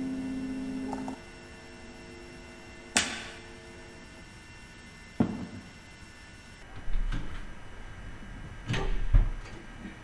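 Piano music that stops about a second in, then a few scattered sharp knocks or cracks, the loudest near the end, over a low rumble that begins in the second half.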